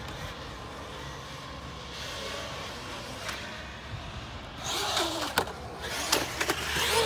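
Traxxas Maxx RC monster truck's brushless electric motor revving, with tyre noise on concrete, rising loud about four and a half seconds in. This is followed by sharp knocks of the truck hitting the concrete, a failed backflip attempt.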